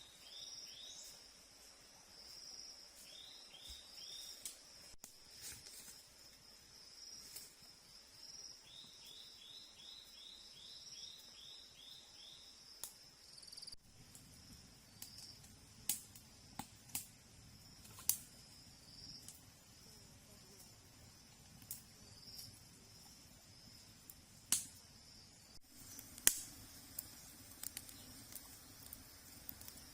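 Insects trilling steadily in the background, with runs of quick falling chirps in the first half. From about halfway, scattered sharp clicks and knocks join in over a low hum.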